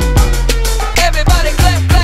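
Background music: a steady beat with deep bass drum hits, held bass notes and gliding higher synth notes.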